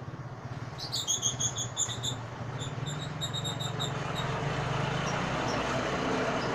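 Lovebirds giving a quick run of shrill, evenly repeated chirps for about two seconds. A broad rushing noise then builds up and is loudest near the end, over a low buzzing hum.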